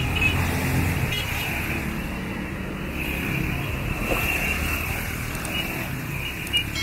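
Small motorcycles running past close by, their engines a steady rumble that swells and fades over busy street traffic.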